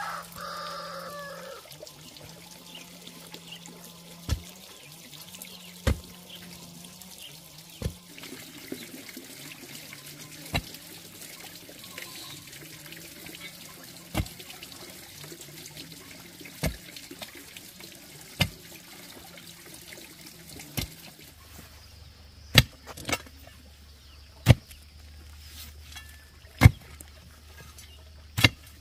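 Long iron digging bar striking into hard, stony ground, a sharp hit about every one and a half to two seconds, the hardest strikes near the end. Under it, water trickles steadily from a pipe into a basin.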